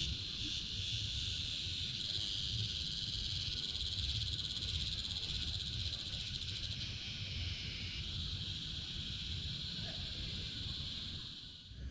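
Insects calling in a steady, high, buzzing trill that cuts off abruptly near the end, over a low rumble.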